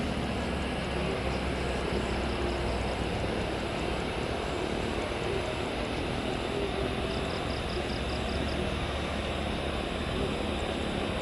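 Airbus A320 jet airliner's engines running at approach power as it passes close on final and touches down, a steady jet noise.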